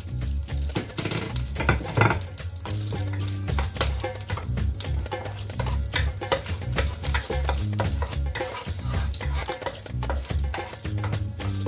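Garlic cloves sizzling in hot oil in a non-stick wok, stirred with a wooden spatula that clicks and scrapes against the pan. Background music plays underneath.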